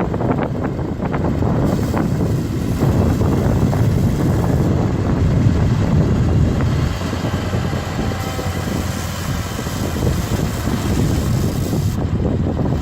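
Heavy diesel earthmoving machinery, a bulldozer or dump truck, running steadily at work, its sound strongest in the low range, with wind noise on the microphone.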